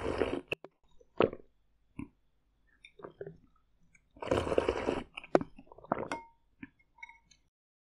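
Close-miked slurping sips of clear soup from a ceramic spoon: a short sip at the start and a longer, louder one about four seconds in, with wet mouth clicks and swallows between and after.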